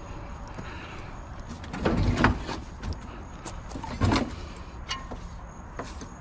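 Scrap items being handled and set down around a truck: two loud clunks, about two and four seconds in, among lighter clicks and knocks.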